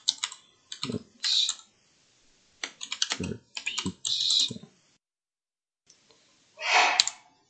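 Typing on a computer keyboard: two quick runs of keystrokes, then a short, louder rush of noise near the end.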